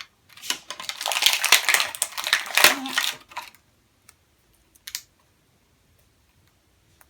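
Plastic toy packaging and small toy pieces being handled: about three seconds of dense crackling and clicking, then a few scattered light clicks.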